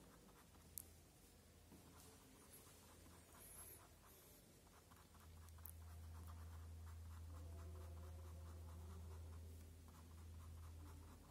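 Ink pen scratching on paper in rapid short strokes, hatching shading into a drawing. A steady low hum runs underneath, louder from about halfway through.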